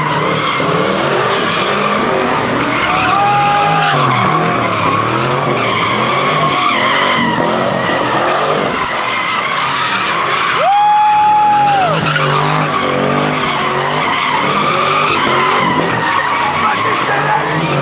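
A car doing donuts: its engine revs up and down while the spinning rear tyres screech against the pavement. About eleven seconds in comes one long, high, steady squeal, the loudest moment.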